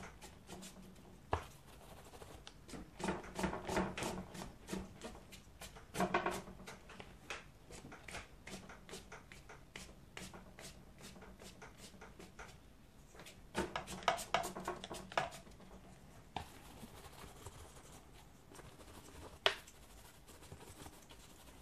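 Flat watercolour brush stroking and dabbing across paper in quick scratchy runs, with short pauses between runs and one sharp tap near the end.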